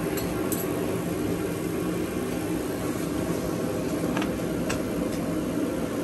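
Steady low mechanical hum, with a few faint clicks about two thirds of the way through.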